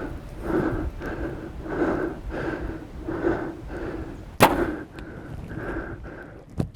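A bow being shot: one sharp snap of the string about four seconds in, over a pulsing sound that repeats a little under twice a second.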